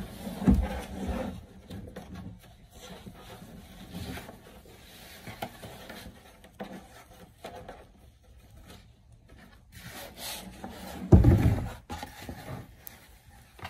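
Shorts being pulled onto a plastic mannequin form: fabric rubbing and rustling against the plastic, with low thumps as the form is handled, one about half a second in and the loudest about eleven seconds in.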